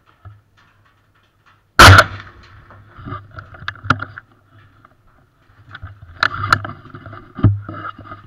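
A single very loud rifle shot from a .450 Bushmaster fired from inside a wooden deer blind, about two seconds in, ringing off afterwards. Scattered sharp clicks and knocks follow as the rifle is handled in the blind.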